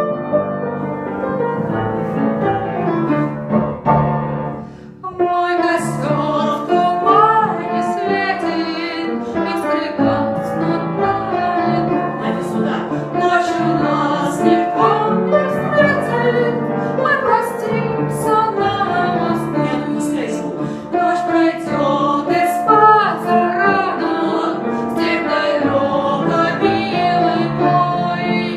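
Music: piano accompaniment with a melody line gliding over sustained chords, starting after a short dip about five seconds in.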